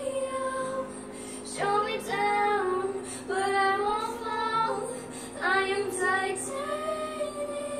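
A ten-year-old girl singing in long, held notes that slide in pitch, several phrases with short breaths between them.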